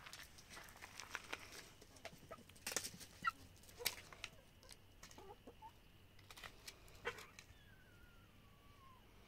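Domestic hens clucking softly, with scattered short clicks. Near the end there is a single falling whistled note.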